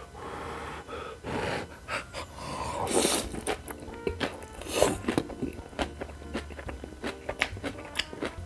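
A man slurping instant ramen noodles wrapped in spicy kimchi and chewing them, with two loud hissing slurps about three seconds in and just before five seconds in, among many small wet clicks of chewing.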